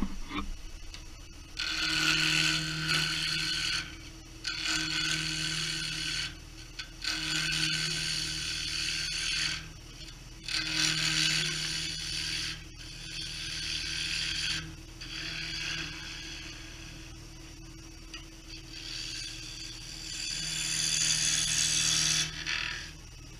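Wood lathe running with a steady hum while a hand-held turning gouge cuts a small spinning wooden blank held in a chuck. The cuts come in about seven passes of one to three seconds each, with short pauses between them.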